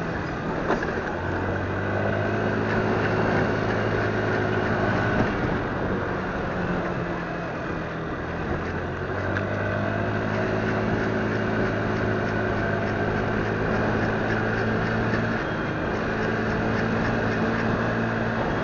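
Motorcycle engine running as the bike rides along, with wind and road noise over it. The engine note drops about five seconds in and picks up again about nine seconds in.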